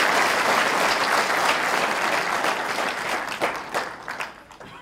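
A large audience applauding, a dense patter of clapping that thins to scattered separate claps and dies away near the end.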